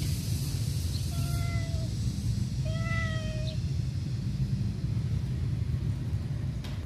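A cat meowing twice: two drawn-out meows of level pitch, about a second and a half apart, over a steady low rumble.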